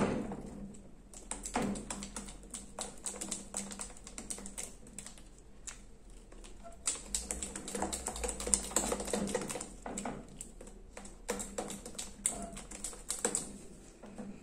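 Silicone spatula stirring a thick condensed-milk cream in a metal pot: irregular soft scraping and many small clicks and taps against the pan's sides and bottom.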